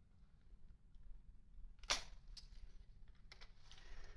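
Faint handling noise with a few small metallic clicks, the sharpest about two seconds in, as a folding hex key set tightens the bolts of a Picatinny rail on a crossbow pistol.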